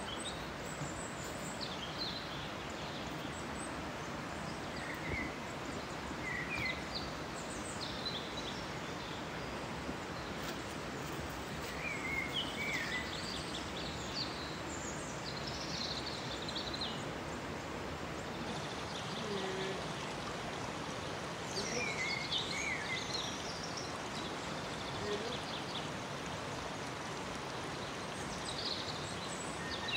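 Shallow mountain stream running over rocks in a steady rush of water, with birds chirping briefly now and then.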